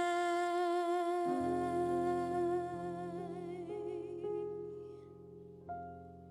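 A woman's voice holding the final sung note of a song, one long note with vibrato that slowly fades out near the end. About a second in, low plucked string notes come in beneath it, with a few more single plucks later.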